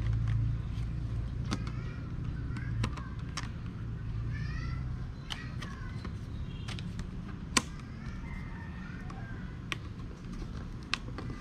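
Light clicks and taps of a clear plastic seedling-tray lid being handled and knocked against the plastic tray, one sharper click near the middle. Birds chirp in the background, and a low rumble fades out about halfway through.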